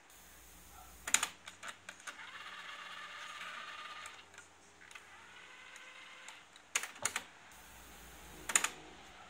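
The transport buttons of a Sansui dual cassette deck are pressed in turn, play and then stop, each press a sharp mechanical click. A faint hiss sounds between the presses.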